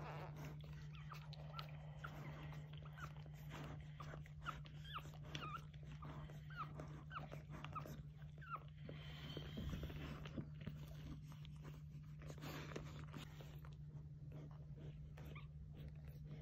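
Newborn English springer spaniel puppies squeaking, a run of short, high, gliding cheeps through the first half, with scattered soft clicks and a steady low hum underneath.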